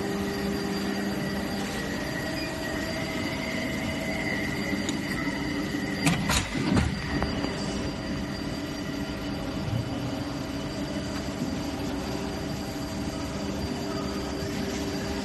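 Plastic injection molding machine with a syringe mold, running with a steady mechanical hum and several steady whining tones. A short run of loud knocks comes about six seconds in.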